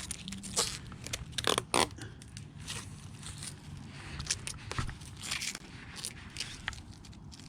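Protective plastic film being peeled off new car bumper trim: irregular crackling and scraping, with a few louder crackles about a second and a half in.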